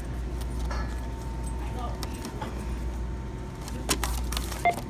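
Two sharp clicks of handling on a self-checkout's steel counter near the end, the second louder with a brief ring, over a steady low hum.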